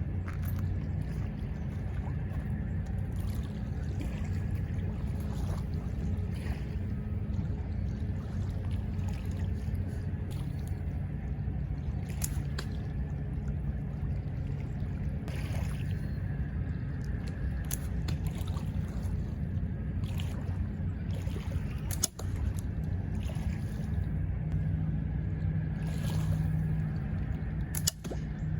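A steady low rush of running river water, broken by several sharp snaps. The snaps are shots from a slingshot with flat latex bands.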